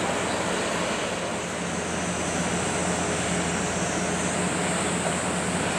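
A passing ship's diesel engine running with a steady low drone over a constant even hiss.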